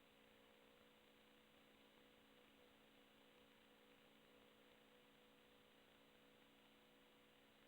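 Near silence: only a faint, steady electronic hum and hiss.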